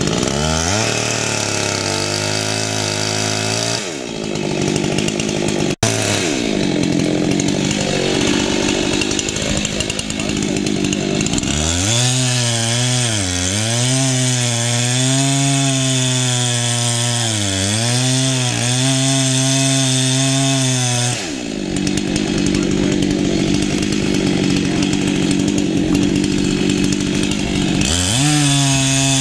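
Husqvarna chainsaw cutting into the trunk of a boxelder at its base, the chain working through the wood. The engine note repeatedly sags and climbs back as the chain loads up in the cut and frees again, with steadier full-throttle cutting in between.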